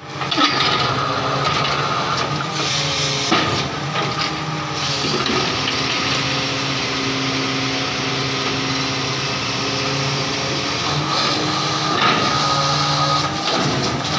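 Truck-mounted borewell drilling rig running steadily while drilling through rock, with a broad hiss of compressed air blowing rock dust and cuttings out of the hole.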